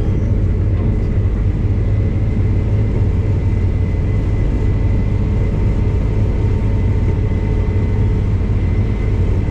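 Case combine harvester running steadily under harvest load: a deep, even engine drone with a faint steady whine above it.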